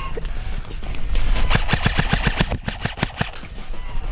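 Airsoft rifle firing a full-auto burst, a rapid run of sharp cracks at about ten shots a second lasting a little over two seconds, starting about a second in.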